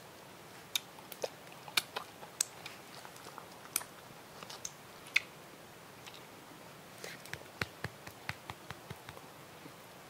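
A dog chewing something fed from the hand: irregular sharp crunches, coming quicker for a couple of seconds near the end.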